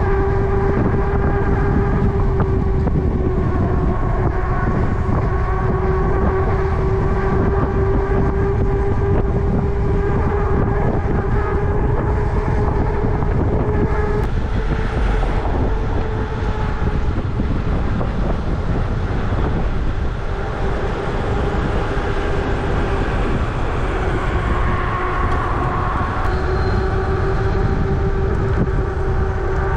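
Electric bike ridden at speed: a steady motor whine that drifts slightly in pitch, over heavy wind rumble on the microphone.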